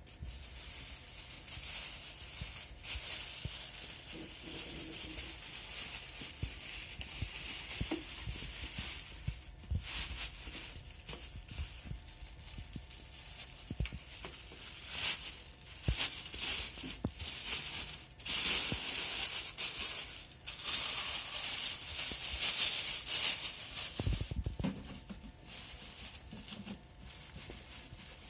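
Thin plastic refill bag rustling and crinkling as it is handled, opened and stretched over a diaper pail's inner bucket, busiest in the second half, with a dull knock of plastic near the end.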